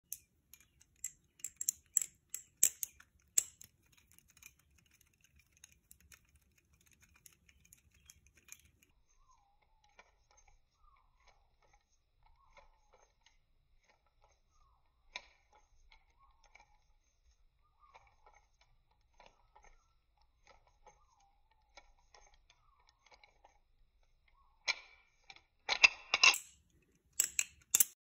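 Balisong (butterfly knife) being flipped: its metal handles and blade clack together in quick runs of sharp clicks, thick at first, then sparse through a quieter middle stretch, and loud again near the end.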